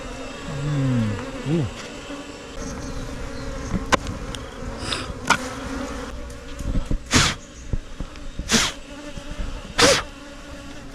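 Asian honey bees (Apis cerana) buzzing steadily in a swarming hum around an opened hive. A few sharp clicks come in the middle, and three short hissing bursts near the end.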